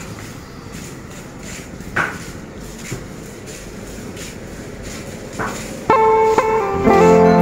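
Low street background noise with a few sharp knocks, then background music with steady sustained notes comes in loudly about six seconds in.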